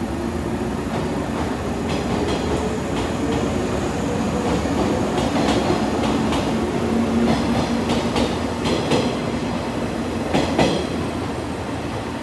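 Yellow JNR-era electric multiple unit running past along the platform: a steady motor and running hum, with its wheels clacking over rail joints again and again, more often in the second half.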